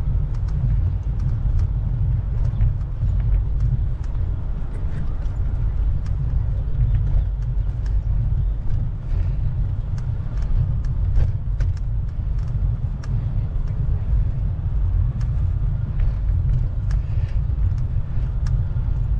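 Steady low wind rumble buffeting the microphone of a camera carried on a moving bike, with faint scattered clicks over it.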